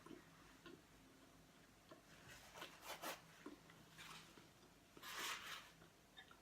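Faint eating sounds from someone having hot soup: a few soft rustling, scraping noises and small clicks, with a longer soft hiss a little after five seconds in.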